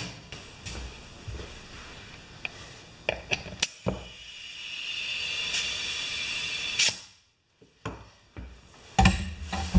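Small metal clicks and knocks of work at a wheelbarrow tire's Schrader valve stem. About four seconds in comes roughly three seconds of compressed air hissing at the valve, ending in a sharp click, then more knocks near the end.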